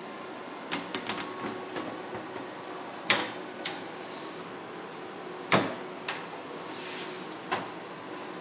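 Hard computer parts being handled: irregular clicks and knocks, two louder ones about three and five and a half seconds in, over a steady hiss.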